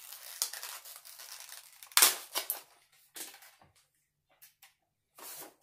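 A box of tattoo needle cartridges and its packaging being handled and opened: irregular rustling and crinkling with short clicks, the loudest a sharp snap about two seconds in.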